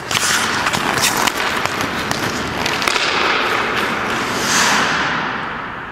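Hockey skate blades scraping and carving on rink ice, with sharp clicks from the stick handling the puck. A longer, louder scraping hiss comes about four and a half seconds in.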